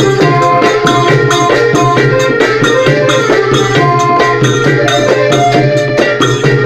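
Thai klong yao long-drum ensemble playing a fast, steady rhythm of hand-struck drums and shaken or struck small percussion, with a held melody line over it.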